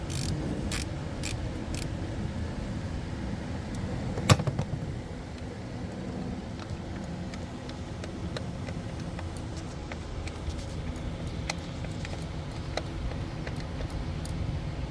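Metal-on-metal clicks from an 8 mm ratchet and small bolts while ignition coil bolts are taken out: a few sharp clicks in the first two seconds, one louder clank about four seconds in, then scattered faint ticks over a steady low rumble.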